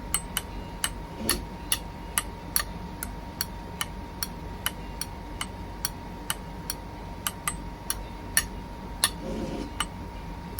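Steady, regular ticking, about two to three sharp clicks a second, over a faint steady high-pitched hum.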